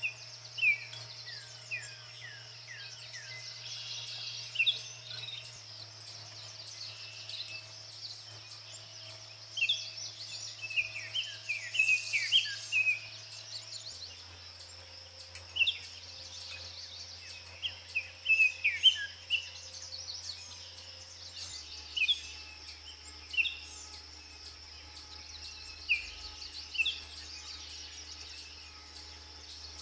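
Wild birds chirping and calling in short, falling notes, in scattered clusters, over a steady high insect chirring. A faint low hum underneath steps down in pitch three times.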